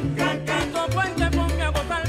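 Upbeat background music: a melody that could be a singing voice, over a bass line moving in held notes and quick, steady percussion.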